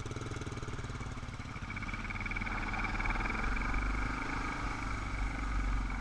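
Dirt motorcycle engine running as the bike pulls away from a stop and gets under way, growing louder about two seconds in, with tyre noise on loose gravel.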